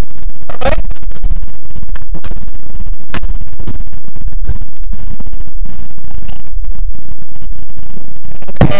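Loud, distorted scratching and crackling noise, clipping throughout, full of rapid clicks.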